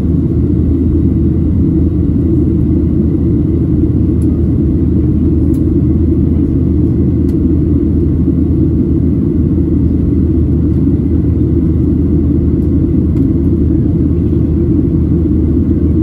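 Boeing 737-800's CFM56-7B jet engines and airflow heard inside the cabin during the climb after takeoff: a steady low rumble.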